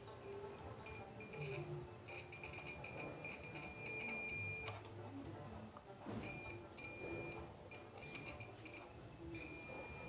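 A high electronic beeping tone that switches on and off in uneven stretches: one long beep of about three seconds, then several shorter beeps in the second half.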